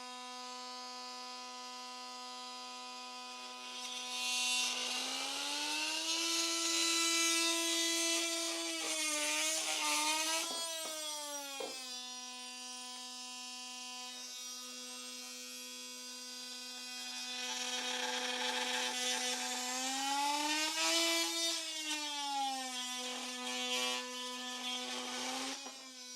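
Oscillating multitool with a straight plunge blade running with a steady buzzing whine, and twice biting into cherry and box elder wood. During each cut it gets louder with a rasping edge and its pitch bends up and down.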